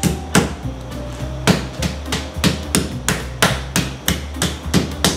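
Meat tenderizer hammer pounding raw chicken breast flat, a steady run of sharp whacks at about three a second.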